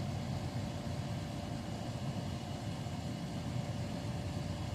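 Steady low hum of background machinery, like an air conditioner or an idling engine, running evenly throughout, with no distinct clicks from the pick.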